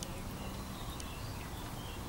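Outdoor garden ambience: a steady low rumble with a few short, faint high chirps and a couple of light ticks.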